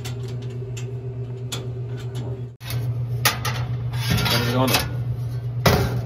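Metal parts inside a Vendo 721 can vending machine's steel columns clinking and knocking as the column spacers are handled. A few sharp metallic clicks, the loudest near the end, sound over a steady low hum.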